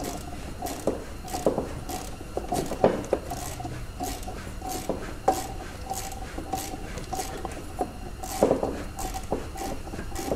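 Ratchet wrench clicking in a regular run, a few clicks a second, with light metallic clinks, as a socket backs out an engine-mount bolt.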